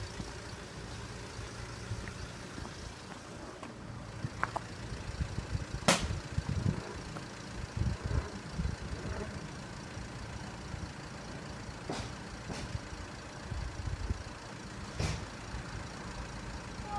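Low, uneven rumble of a Class 175 diesel multiple unit approaching the level crossing, with a few sharp clicks.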